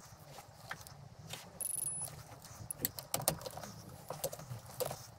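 Digital torque wrench beeping once for about half a second, the alert that a cylinder-head bolt has been turned through its set 90 degrees. Around it are sharp ratchet clicks and metal clinks of the socket and wrench working the bolts.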